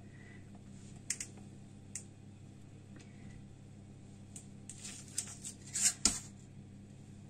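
Ketchup being put on pizza dough: scattered light taps and clicks of kitchen handling, with a short scrape and a sharp clack about six seconds in.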